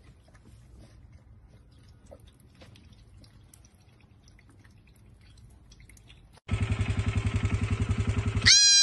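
Baby goat bleating: a loud, fast-pulsing rattling call for about two seconds, then a high, clear bleat held for about a second. Before it there are only faint scattered clicks.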